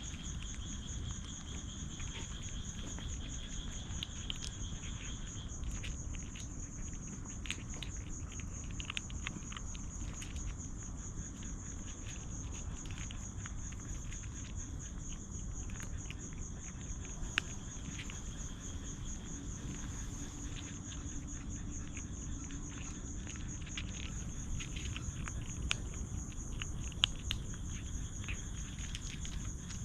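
Crickets trilling steadily in a high, fast-pulsing chirr, with a second, lower trill that stops about five seconds in. Scattered light clicks and rustles over a steady low rumble.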